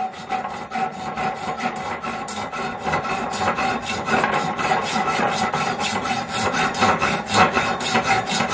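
Small hand saw rasping back and forth through the wire of a metal wire shelf, in quick even strokes of about four or five a second.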